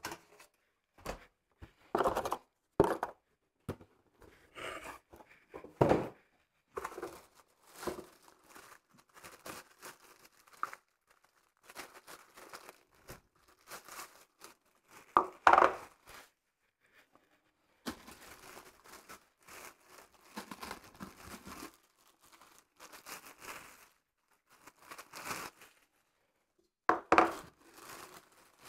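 Clear plastic film crinkling and tearing in irregular spurts as it is pulled off a glass blender jug, with a few louder crackles.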